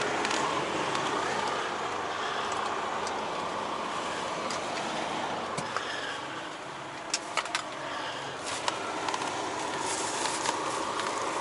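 A vehicle running, a steady rushing noise, with a few sharp clicks in the second half.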